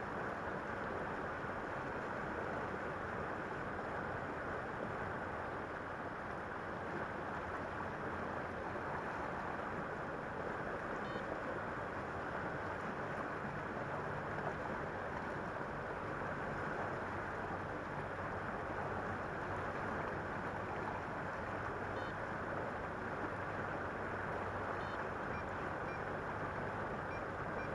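Steady wind and river noise with the low, even hum of a small motorboat engine passing on the river.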